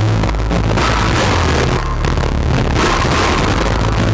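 Homemade amplified metal-and-wood noise instrument being scraped and worked by hand, giving a harsh, dense wall of noise over a steady low drone. The upper noise cuts back and swells again about every second.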